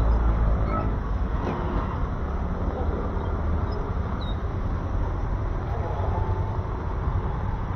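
Traffic on a rain-wet road: a steady rumble of passing vehicles with the hiss of tyres on wet pavement and falling rain.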